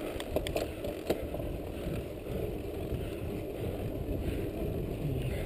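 Mountain bike rolling along a dirt track: a steady low rumble of tyres on the ground and air over the microphone, with a few sharp clicks and rattles from the bike in the first second.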